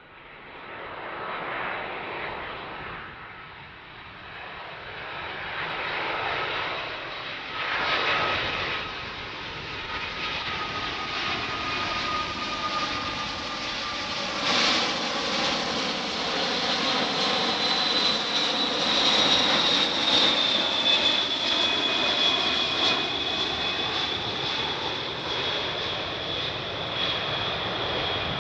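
Jet airliner's engines passing, the roar building steadily louder, with a high fan whine that slowly falls in pitch.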